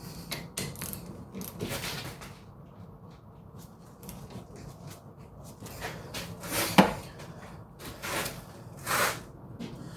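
Tools and parts being handled during brake work: scattered knocks, clicks and rustles, with one sharp knock about seven seconds in, over a low steady hum.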